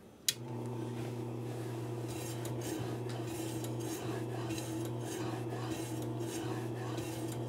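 Electric deli meat slicer: a click about a third of a second in, then the motor and circular blade running with a steady hum. From about two seconds in, repeated rasping strokes, a couple a second, as the dry-cured beef tenderloin is pushed through the blade and sliced thin.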